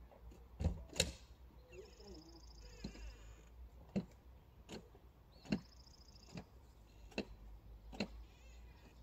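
A series of sharp knocks or clicks, roughly one a second, the loudest about a second in. High trills that sound like birdsong come and go behind them.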